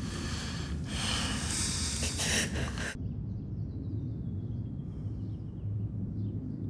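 Bedclothes rustling with bodies shifting for about three seconds. It then cuts off abruptly to a low steady room hum.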